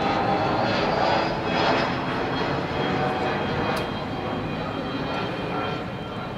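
An aircraft passing over, a steady rushing engine noise with a few high whining tones that slowly fades.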